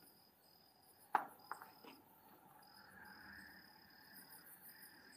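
Faint, steady, high-pitched cricket trill, broken by short gaps. A single sharp click about a second in is followed by a couple of fainter ticks.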